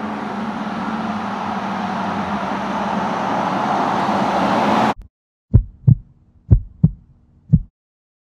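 Coyote 5.0 V8 in an OBS Ford pickup running steadily as the truck drives up, slowly growing louder, then cutting off suddenly about five seconds in. It is followed by five deep heartbeat-like thumps, two pairs and a single.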